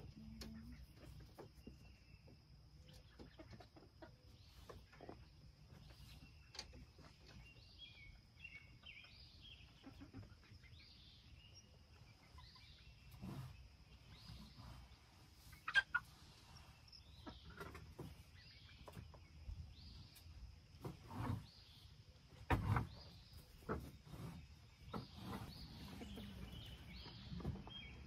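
Chickens clucking and chirping softly, with scattered knocks and bumps. The loudest knocks come a little past halfway and again about three quarters in.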